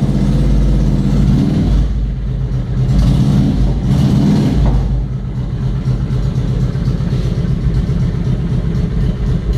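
Carbureted Honda Shadow 750 V-twin with an aftermarket Customer sport exhaust, blipped up twice, then settling to a steady idle from about five seconds in.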